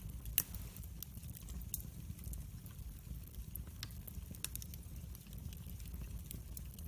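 Fire crackling: irregular sharp pops and snaps over a steady low rumble, with one louder pop about half a second in.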